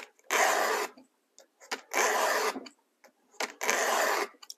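Stihl 2-in-1 chainsaw sharpener's files rasping across a chain cutter tooth in three push strokes, each just under a second long and about a second and a half apart, sharpening the tooth.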